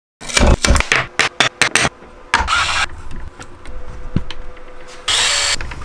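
Plastic clicks and knocks of a Nerf blaster being handled, a quick run of sharp clicks in the first two seconds, scattered softer clicks after, and a short louder rush of noise near the end.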